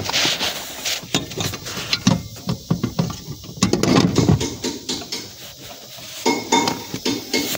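Irregular metallic clinks and knocks from an Isuzu D-Max's clutch pedal assembly being handled and refitted into its mounting in the footwell.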